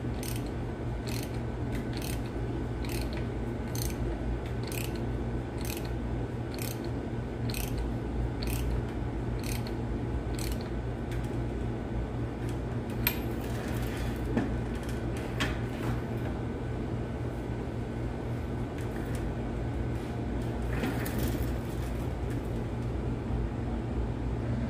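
Ratchet wrench clicking at an even pace of about two clicks a second as a gear bolt on a Caterpillar 3176 diesel's front gear train is turned. After about twelve seconds the clicks become scattered and give way to a few knocks, over a steady low hum.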